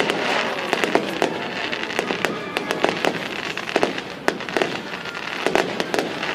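Aerial fireworks bursting, with a dense run of sharp, irregular crackling pops from crackling-star shells over a steady hiss.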